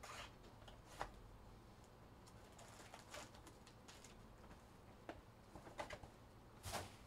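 Faint, scattered clicks and rustles of small objects being handled at a table, a sharper click about a second in and a louder rustle near the end.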